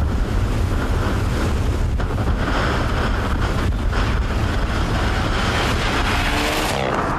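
Strong wind buffeting the microphone in a steady low rumble. A Mitsubishi Lancer Evolution rally car driving on a gravel stage is partly buried under it.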